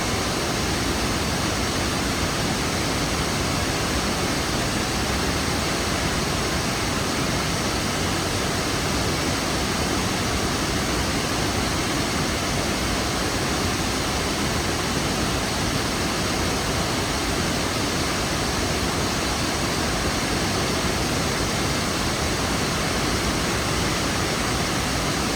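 Steady, unbroken rush of a large waterfall, the Kravica falls, with water pouring over the cascades.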